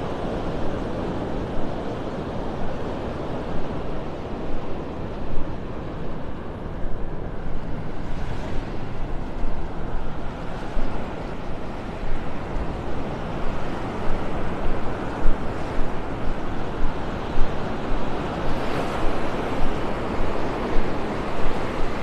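Wind rumbling on the microphone in uneven gusts, over the wash of small waves breaking on the beach.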